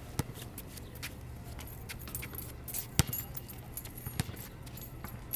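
Basketball bouncing on a hard outdoor court: a few separate sharp bounces, the loudest about three seconds in, with light metallic jangling in between.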